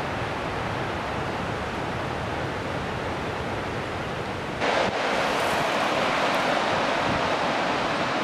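Ocean surf washing steadily, with wind. The sound turns suddenly louder a little past halfway and stays louder.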